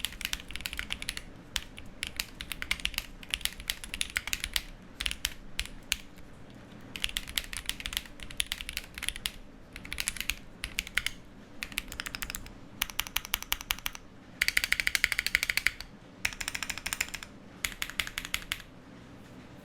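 Typing on a Ginkgo65 custom mechanical keyboard with Peri switches and GMK keycaps: quick runs of key clacks in bursts separated by short pauses. The fastest, loudest run comes about two thirds of the way in, and the typing stops shortly before the end.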